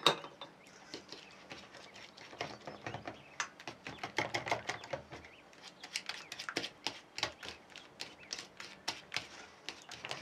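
Small metal spoon stirring a runny egg and melted-butter mixture in a stainless steel bowl to dissolve yeast, clinking and scraping against the bowl several times a second. There is a sharp clink at the very start, and the ticks come faster in the second half.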